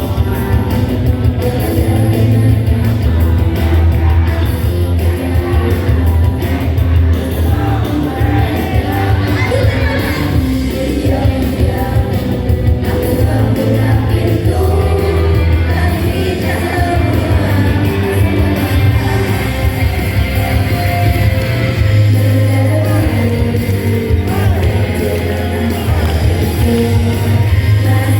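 Live band playing a rock song with a singer and heavy bass, echoing in a large hall.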